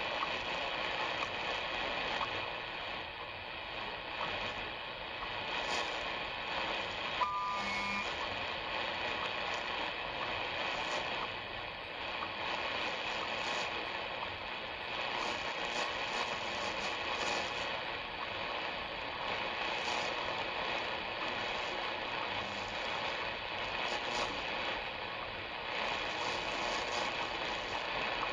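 Shortwave radio tuned to the 5 MHz WWVH time-signal broadcast, heard through a steady hiss of static with faint once-a-second clock ticks. A brief pair of short beeps comes about seven seconds in.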